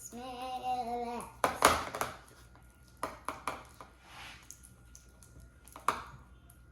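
A voice holding one note for about a second, then a clatter of a stirring utensil knocking against a bowl while slime is mixed, loudest about a second and a half in, with a few lighter clicks later.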